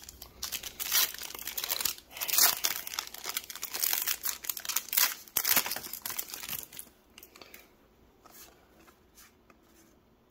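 Foil wrapper of a Pokémon card booster pack being torn open and crinkled: a dense run of sharp crackles that stops about seven seconds in, followed by faint handling of the cards.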